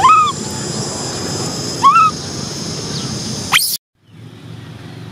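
Baby macaque crying in short whimpering calls, each rising then falling in pitch: one at the start and one about two seconds in, then a quick upward squeal, followed by a brief silence and a quieter background.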